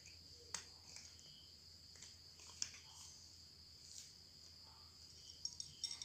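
Cats eating dry kibble from a glass bowl: a few short, sharp crunches and clicks, scattered a second or two apart and bunching together near the end, over a steady high-pitched background drone.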